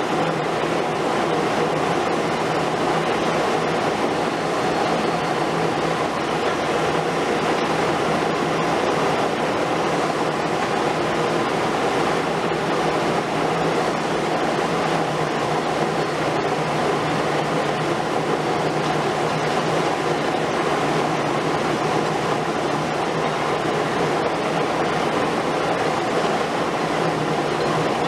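Liebherr R 950 Demolition long-front excavator at work on a concrete building: its diesel engine running steadily under a continuous rumble of concrete being crushed and rubble falling.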